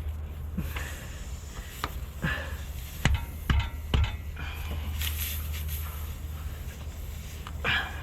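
Tyre puncture-repair tool being worked in and out of the hole in the tyre, rubber scraping with a few sharp knocks about two to four seconds in, over a steady low hum.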